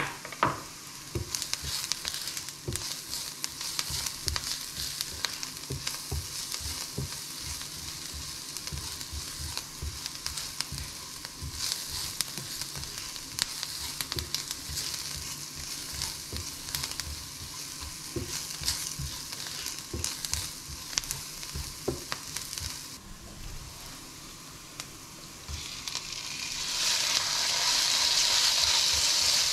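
Diced vegetables sizzling in oil in a nonstick frying pan, stirred with a spatula that scrapes and knocks against the pan. About three-quarters of the way in, raw ground beef goes into the pan and the sizzle grows much louder and steadier.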